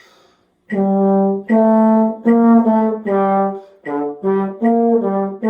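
A brass instrument playing a slow beginner-band melody in its low register: about nine separately tongued notes, starting a moment after the count-off and ending on a held note.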